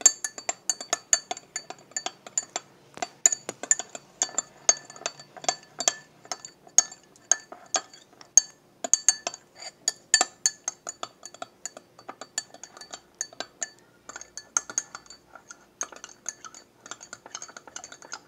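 A spoon stirring liquid in a drinking glass, clinking against the glass wall over and over in a quick, irregular rhythm, each strike leaving a short glassy ring.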